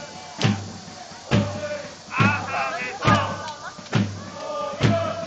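Football supporters singing a chant together to a steady bass drum, about one beat a second.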